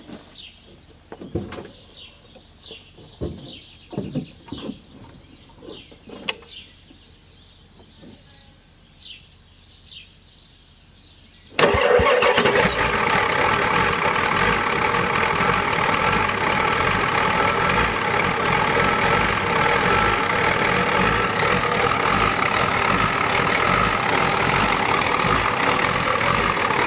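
A few knocks and some bird chirps, then about twelve seconds in the 1993 Ford F-250's non-turbo 7.3 L IDI V8 diesel fires and keeps running loud and steady, heard close up in the engine bay. It is running rough, which the owner puts down to an out-of-time injection pump.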